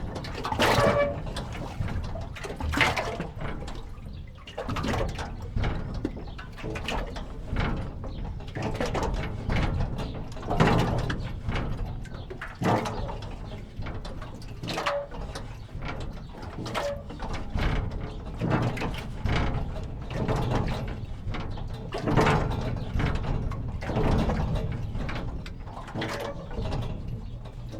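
Water splashing and sloshing against a jetty in irregular surges every second or two, with short squeaks from the jetty now and then.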